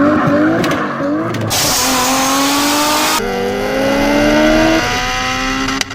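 Race car engine sound effect accelerating hard, its pitch climbing steadily and dropping at gear changes about a second and a half and three seconds in, then climbing again. It is cut off suddenly near the end.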